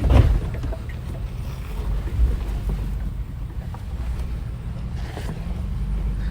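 Off-road vehicle's engine running at low speed, a steady low rumble, with a sharp knock right at the start and a smaller one about two seconds in.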